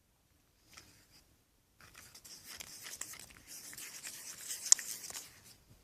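A utensil stirring and scraping a thick toothpaste, salt and hand-soap slime mixture in a container: a continuous rubbing scrape with many small clicks that starts about two seconds in, and one sharp click near the end.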